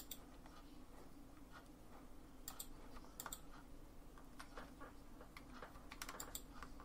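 Computer mouse buttons and keyboard keys clicking: a few faint, scattered clicks, with a quick cluster near the end, over a faint steady low hum.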